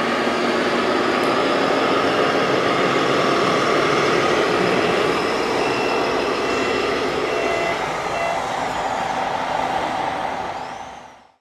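Sound module of a radio-controlled truck, giving a steady truck-engine sound with a series of short reversing beeps in the middle, then fading out near the end.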